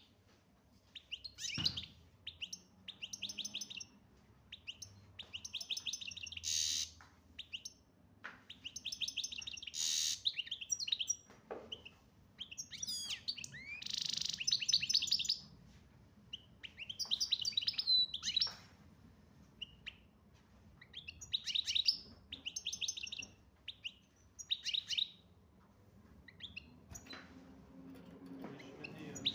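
European goldfinch singing: repeated phrases of rapid, high twittering and trills, each a second or two long, with short pauses between.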